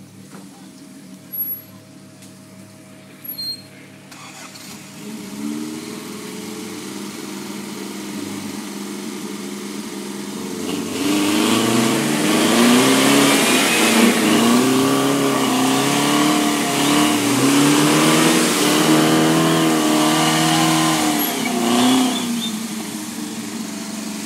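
Off-road vehicle's engine revving hard in repeated surges, its pitch climbing and dropping again and again, with a loud rushing noise over it through the middle stretch. Two short clicks near the start, before the engine builds up.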